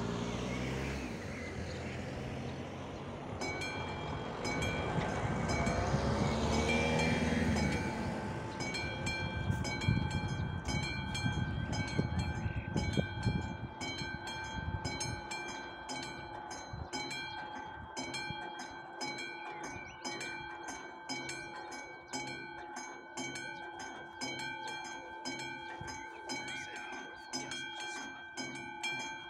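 A classic electromechanical level-crossing bell ringing, even metallic strokes of about three a second with a lingering ring, starting a few seconds in and steady from about nine seconds. A car passing over the crossing makes rumbling road noise in the first several seconds.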